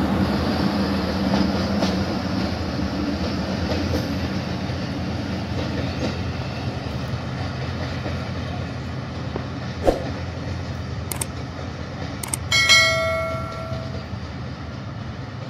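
Passenger train coaches rolling away over the rails as the train departs, a steady rumble that slowly fades. Near the end come a few sharp clicks and a short bell-like chime.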